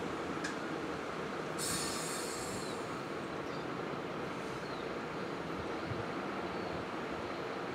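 Class 317 electric multiple unit running slowly into a station platform, a steady rumble of wheels on rail, with a brief high squeal about a second and a half in.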